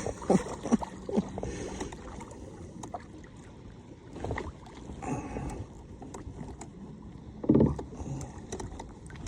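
Kayak being paddled: the paddle dipping and knocking against the plastic hull, with a run of clicks and knocks in the first second or so and a louder thump about seven and a half seconds in.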